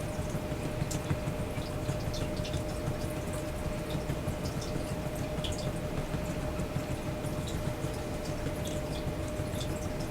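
Steady running water with scattered small drips, over a faint steady hum.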